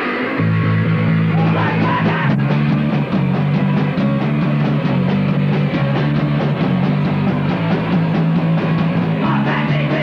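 Punk band playing live and loud: distorted electric guitar and bass in a dense, steady wall of sound, with the low notes shifting every second or so.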